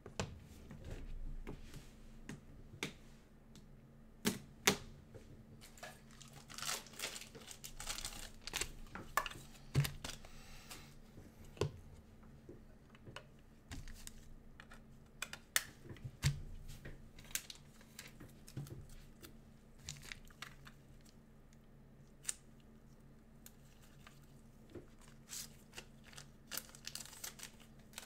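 Trading cards and their plastic sleeves and packaging being handled: scattered crinkling with small clicks and taps, busiest about six to eleven seconds in, over a faint steady hum.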